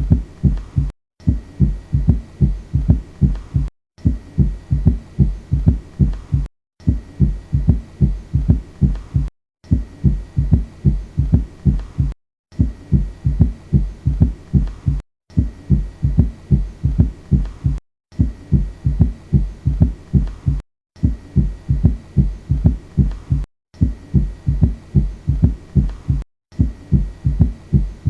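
Stethoscope recording of a heartbeat with a third heart sound (S3): each beat has an extra low thud early after the second sound, giving a three-part gallop rhythm. The short recording repeats in a loop, with a brief silent gap about every three seconds.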